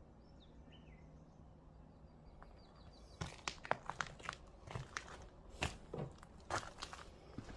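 Footsteps crunching and crackling over a debris-strewn floor, starting about three seconds in as irregular steps.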